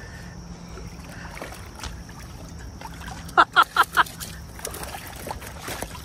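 Shallow creek water running over gravel, with a few light splashes. About halfway through, four quick, loud vocal exclamations from a person.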